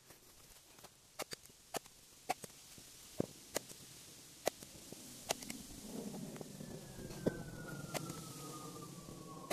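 Sharp, scattered knocks of a hatchet being worked into the top of a wooden log to split it. From about six seconds in, a low rumble builds and a single thin whine falls slowly in pitch.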